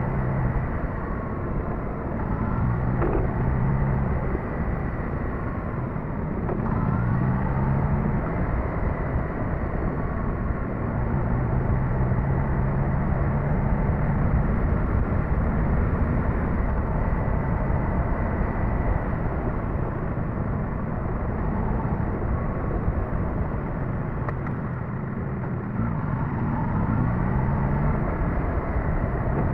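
Suzuki GSX-S1000GT's inline-four engine running under way, its note rising and falling several times with the throttle, over a steady rushing noise.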